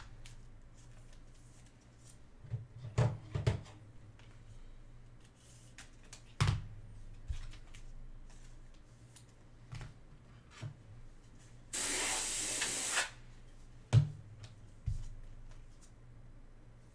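Scattered clicks and knocks of trading cards and small objects being handled on a desk, the sharpest knock about fourteen seconds in. About twelve seconds in, a steady hiss lasts just over a second.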